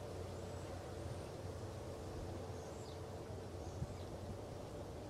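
Quiet outdoor background: a faint, steady low hum with a few faint bird chirps.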